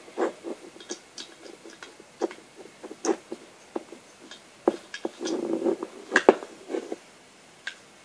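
Plastic Lego Technic parts clicking and knocking as a padlock's gear dial is turned and its parts are handled, with a short scuffing sound a little past five seconds in.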